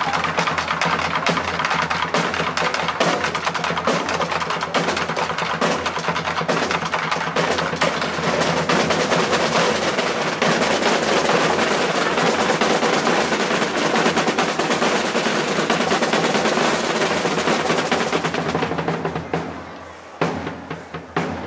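Drumming with rapid snare-drum rolls, thinning near the end to a few separate beats.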